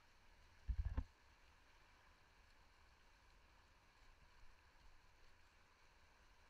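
Faint, steady rush of whitewater heard from a kayak-mounted camera, with a brief low thump about a second in.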